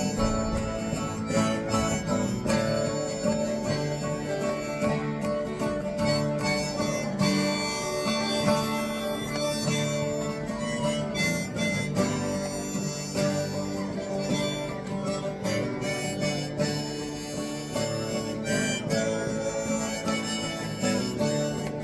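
Instrumental break of an acoustic country-folk song: a harmonica plays the melody over strummed acoustic guitar.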